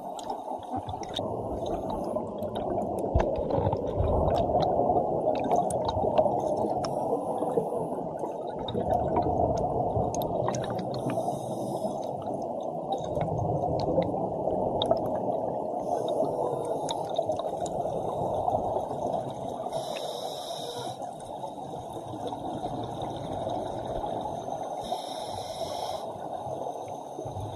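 Muffled underwater rush of strong current against a sealed action-camera housing, with scattered sharp clicks and a few brief bursts of bubbling.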